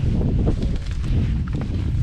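Wind buffeting the microphone, a loud irregular low rumble.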